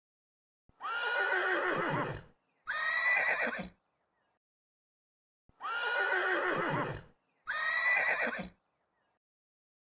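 Horse whinnying: four whinnies in two pairs, each a high wavering call that slides down in pitch at the end, with dead silence between the pairs.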